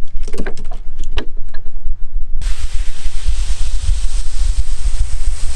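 Wind buffeting the microphone with a heavy rumble. About two and a half seconds in, a steady hiss suddenly joins it.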